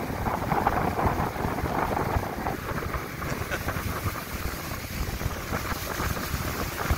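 Steady rush of wind buffeting the microphone on a small boat running at speed.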